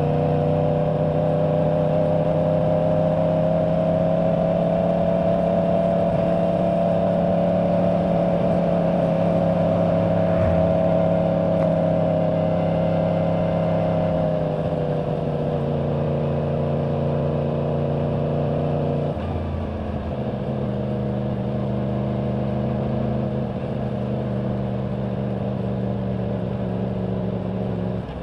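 A 2024 Yamaha R1's crossplane inline-four with its stock exhaust, running under steady throttle at highway speed. The engine note climbs slightly over the first few seconds and holds, then falls away about halfway through as the throttle eases. About two-thirds of the way in there is a brief dip and an abrupt shift in the note, then steady running again. Wind rushes under the engine note.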